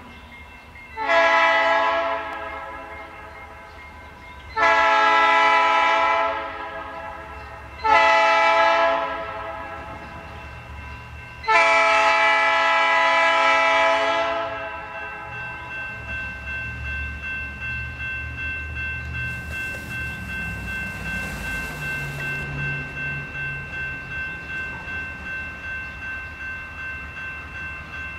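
GE B23-7 diesel locomotive's air horn sounding four blasts for the grade crossing, the last one the longest. Then a warning bell rings steadily about twice a second over the low rumble of the approaching locomotive's diesel engine.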